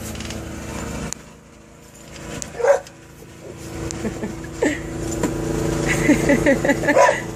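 A dog barking in short bursts, with a quick run of barks near the end, over a steady low hum.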